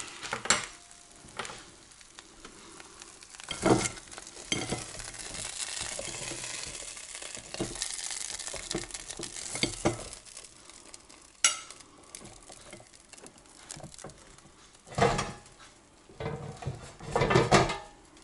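Hot air-fried food being scraped and tipped out of a nonstick air fryer basket onto a plate: a fork and knife clink and scrape in the basket, and there is a soft sizzle from the just-cooked food. Several sharp knocks of the basket and cutlery against the plate and board stand out, the loudest near the end.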